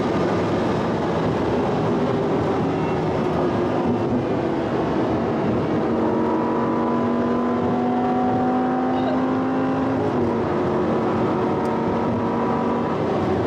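Tuned Audi R8 V10 engine running at high speed, around 200 km/h, heard from inside the cabin under heavy wind and tyre noise. The engine note climbs slowly past the middle, then drops about ten seconds in.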